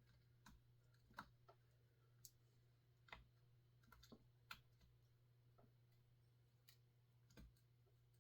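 Faint, irregularly spaced metal clicks of a hand-turned Allen wrench working a screw in the housing of a Husqvarna 350 chainsaw, about a dozen clicks over a steady low hum.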